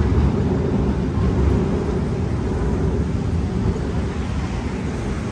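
Steady low rumble of city street traffic, with no distinct events.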